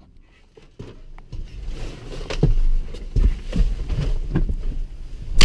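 Tractor running, heard from inside the cab as a low rumble, with scattered knocks and rattles and a loud sharp click at the end.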